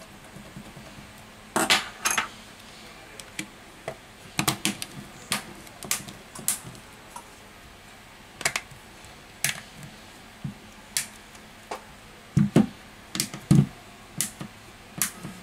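Scattered sharp clicks and taps of a smartphone's plastic back cover and frame being handled and pressed together by hand, with a few heavier knocks near the end.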